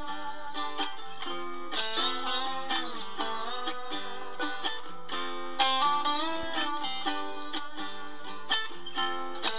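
Background instrumental music played on plucked strings, a run of quick picked notes.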